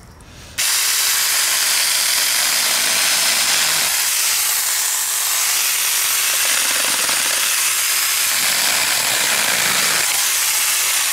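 Saker mini cordless chainsaw switched on about half a second in, its small battery-powered electric motor and chain running steadily while it cuts through a dead branch.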